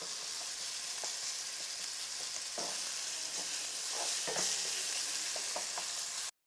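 Food sizzling steadily as it fries in hot oil in a pan. The sound cuts off abruptly near the end.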